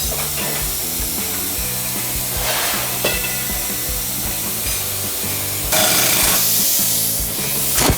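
Background music with a steady beat over workshop tool noises. About six seconds in there is a loud burst of hissing, like compressed air, with a shorter one earlier.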